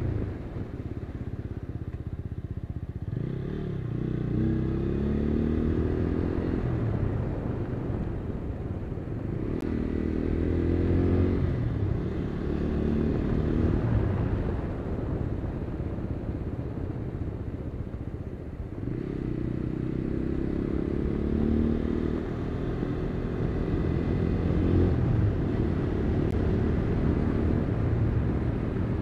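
Motorcycle engine under way, its pitch climbing three times as it accelerates and dropping back after each climb, over a steady low rumble of road noise.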